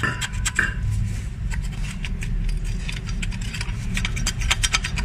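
Rapid small metallic clicks and scrapes as a carbon-fouled EGR valve is turned over and worked by gloved hands, growing busier near the end, over a steady low hum.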